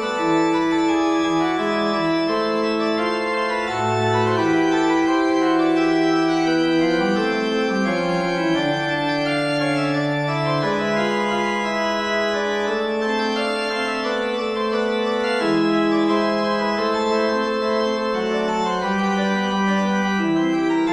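Organ music: slow, held chords and notes that change every second or two.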